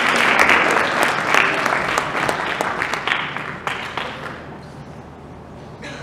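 Audience applauding, loudest at the start and dying away after about four seconds.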